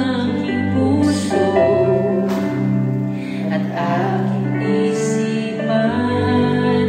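A slow, gentle ballad played with musical accompaniment and a voice singing long, held notes over it.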